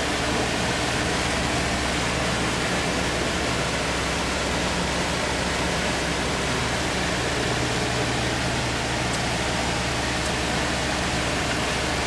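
Motorboat running steadily at speed: a constant rush of wind and water past the hull, with the low drone of its 4.3 MerCruiser V6 sterndrive underneath.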